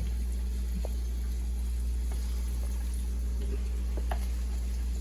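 Flour-coated chicken wings deep frying in hot oil, the oil bubbling steadily over a constant low hum, with a few light clicks.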